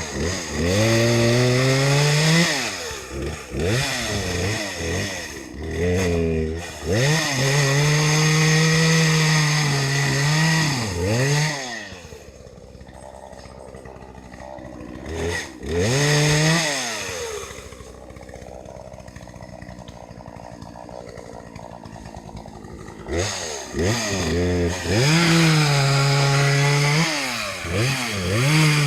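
Chainsaw revving up and down, held at high revs for a few seconds at a time, then dropping to a steady idle for about ten seconds in the middle with one short blip of throttle, before revving hard again near the end.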